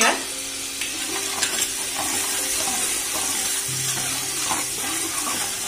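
Hot oil sizzling in a large metal pot as dried red chillies, garlic and spices fry for a dal tempering, with a ladle stirring through it; a brief louder hit at the very start.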